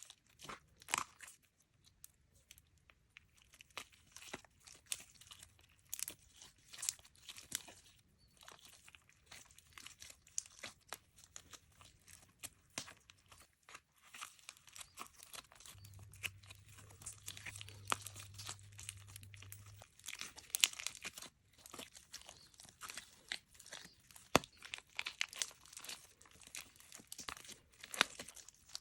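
Clear slime being squeezed and moulded by hand, giving a dense, irregular run of small sticky clicks, pops and crackles. A faint low hum joins in for a few seconds past the middle.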